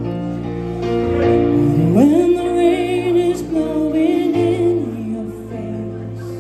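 A woman singing into a handheld microphone over backing music, her voice sliding up about two seconds in into a long held note with vibrato.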